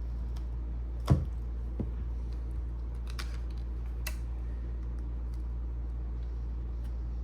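A sharp knock about a second in, then a few light clicks, from repair tools working at a phone's glued back cover, over a steady low hum.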